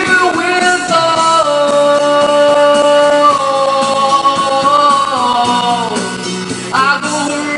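Background music: a song with a long held, gliding vocal line over guitar-led accompaniment.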